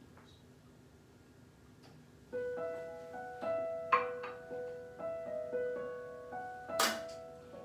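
Quiet room tone, then about two seconds in soft, slow piano music begins, with sustained notes held one after another. A brief sharp noise cuts across the music near the end.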